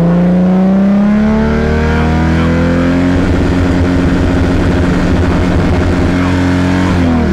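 Lexus IS300's 2JZ straight-six being revved while parked: the revs climb for about three seconds, then hold steady with a rough, choppy note for about four seconds before dropping. It is being held at about 5,000 rpm with the launch-control (two-step) button pressed to try to shoot flames, and the flames don't come.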